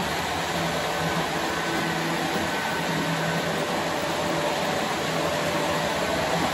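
Model trains running on two levels of track, a steady whir of the locomotives' motors and wheels rolling over the rails, with a faint steady hum in it.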